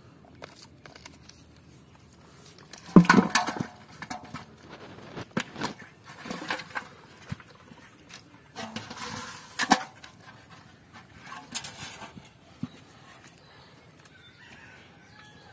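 Irregular knocks, slaps and scrapes of live fish being handled and put into a metal pot, the loudest about three seconds in. Faint bird chirps near the end.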